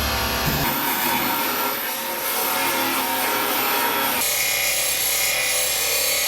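Air-powered belt file (band file) grinding down weld beads on the sheet-steel transmission tunnel, a steady abrasive rasp with a high whine, under background music whose chords change about a second in and again near the middle.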